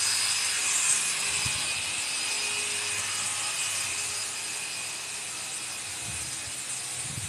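Electric polisher running steadily while buffing a golf cart's paint: a steady hiss with a faint whine, gradually growing fainter.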